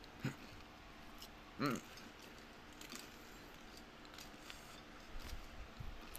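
Watermelon being eaten: faint wet chewing with small scattered clicks, two short pitched squeaks a moment in and just under two seconds in, and a few soft low thumps near the end.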